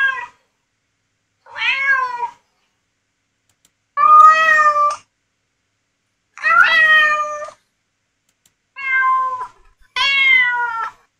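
Cat meowing: about six separate meows, each under a second, with silence between them.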